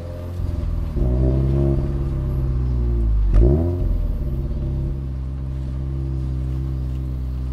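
Toyota 86's 2.0-litre flat-four boxer engine, heard from inside the cabin while driving. It pulls harder about a second in, then about three seconds in the revs dip sharply and climb straight back, before settling into a steady cruising note.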